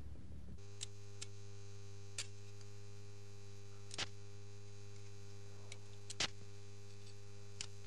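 Steady electrical hum from a homemade electrical apparatus, starting suddenly about half a second in, with sharp spark cracks at irregular intervals of one to two seconds as small arcs jump across it; the loudest crack comes about six seconds in.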